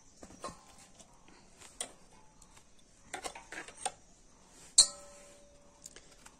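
Metal clinks and light knocks on a stainless steel bowl, with one sharp clang just under five seconds in that rings on for about a second.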